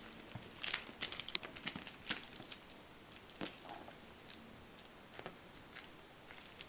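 A kitten at play: quick crinkling and rustling ticks, thickest in the first couple of seconds, then a few scattered ones.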